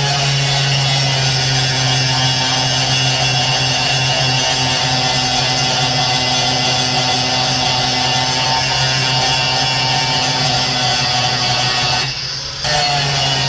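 Electric grinder running steadily with a constant whine, smoothing down a weld on aluminum, easing off briefly near the end before running on.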